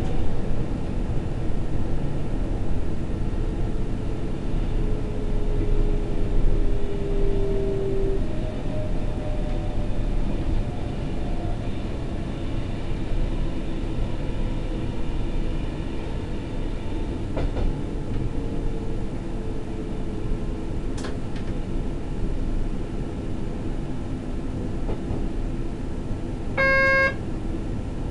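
Berlin S-Bahn electric train running, heard from the driver's cab: steady rumble with a faint whine that falls in pitch over the first several seconds. A short electronic beep sounds once near the end.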